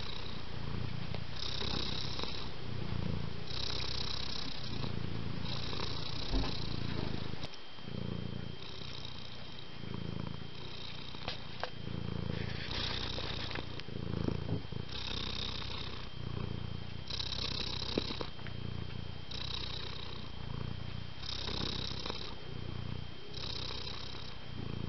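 Domestic cat purring steadily, its rumble rising and falling in a slow rhythm of breaths about every two seconds.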